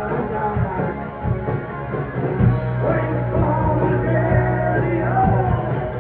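Live rock band playing: electric guitar, bass and drums with a male singer's voice over them.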